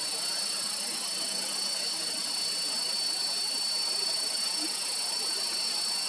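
Steady, high-pitched drone of an insect chorus, unchanging throughout.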